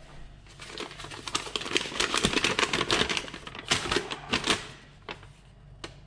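Paper instruction leaflet being handled and leafed through: a quick run of crackling rustles and sharp clicks lasting about four seconds.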